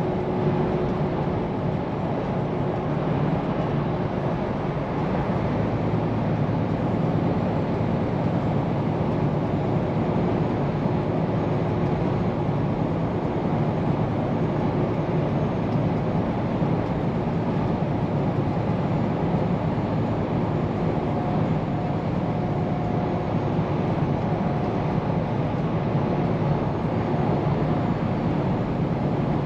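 Scania P410 truck driving at a steady pace: the engine's low drone and road noise run evenly throughout, with a faint steady whine or two on top.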